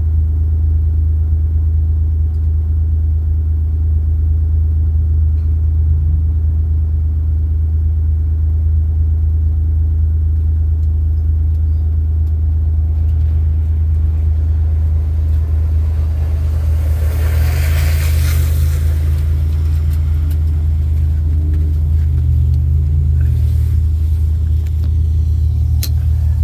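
Steady low rumble of a car being driven, with a hissing rush that swells and fades about two-thirds of the way through.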